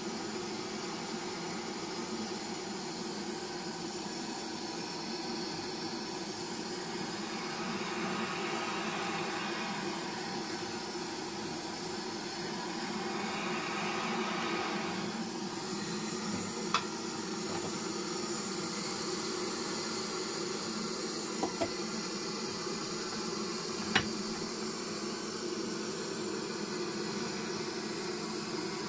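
Handheld gas blowtorch on a screw-on gas cartridge burning steadily with an even hiss, heating a knife blade red hot for hardening. A few sharp metallic clicks sound in the second half.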